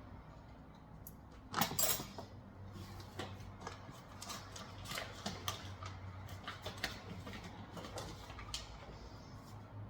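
Metal tongs clicking and clinking against the Instant Pot's steel inner pot and trivet as lamb chops are set in, in irregular knocks with a louder clatter about two seconds in.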